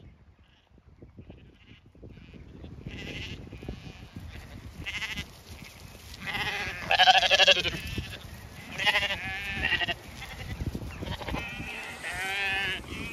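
Zwartbles lambs bleating as they run in to be fed: several wavering calls, the loudest about seven seconds in, over low thumps.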